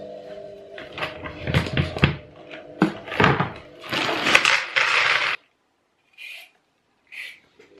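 A plastic bag crinkling and rustling in repeated bursts as it is handled, over a steady low hum in the first second. It stops abruptly, and near the end come two short, soft scrapes.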